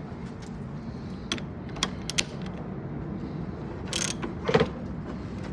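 Ratchet wrench clicking and clunking in a few short strokes as the 32 mm steering stem nut is tightened down. The loudest two strokes come near the end.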